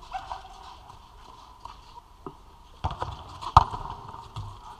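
Thuds from a football shot and the goalkeeper going down to gather the ball on artificial turf, with two sharp impacts in the second half, the louder one about three and a half seconds in.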